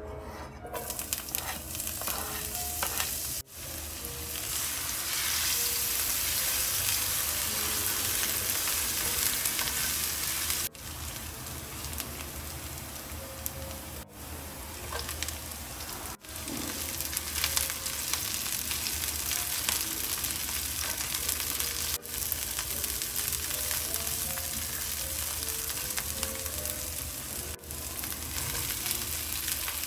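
Chopped shallots, garlic and ginger sizzling in hot oil in a frying pan. The sizzle starts as they drop in and goes on as a steady hiss, broken off briefly a few times, while green chilies and fried salted fish are added and stirred in.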